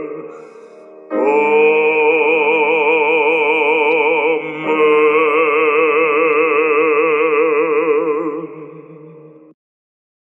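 The closing 'Amen' of a hymn, sung as two long held chords with strong vibrato. The second chord fades away and ends about nine and a half seconds in.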